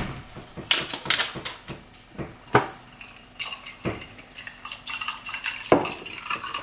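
A few sharp clinks and knocks of a glass and a juice carton being handled on a kitchen counter, the loudest near the end. From about halfway there is a faint trickle of apple juice poured from a carton into a glass.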